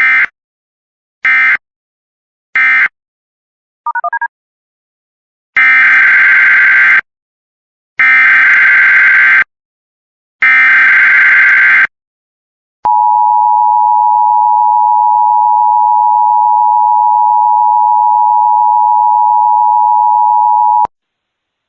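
Emergency Alert System tones: three short SAME data bursts (the end-of-message code) and a brief warbling chirp, then three longer screeching SAME header bursts. An eight-second steady two-tone attention signal follows and cuts off suddenly.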